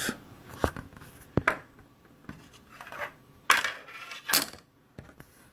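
A few light clicks and two short scraping rubs of small hard objects being handled, the sort made by picking up and working a UV glue pen and a small plastic part.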